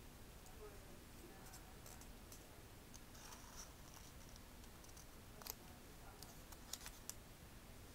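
Faint rustling of folded paper being handled, with a few small sharp clicks in the second half, as modular origami units are slid into one another.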